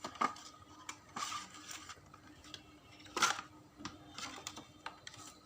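Light clicks, taps and rustles of a soldering iron and its packaging being handled, with a sharper click about three seconds in.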